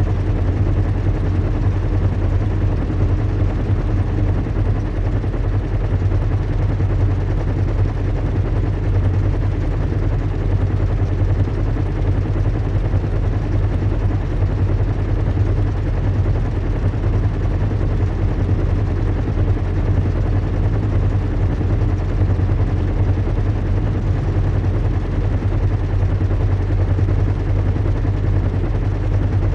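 Recreated airship-in-flight ambience: a steady low engine-and-propeller hum with a fast, even flutter, over a constant hiss of rushing air.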